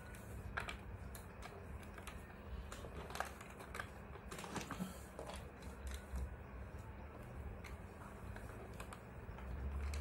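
Irregular light clicks and knocks of hard plastic as caster wheels are handled and pushed into the sockets of a plastic baby walker base, over a low steady hum.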